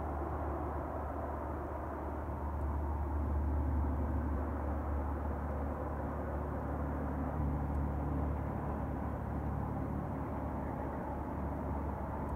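Steady rushing of a mountain creek's small falls and cascades, a constant low-heavy roar with no break.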